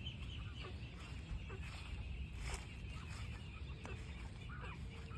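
Farmyard poultry calling, with short clucks scattered through, over a steady high chirping.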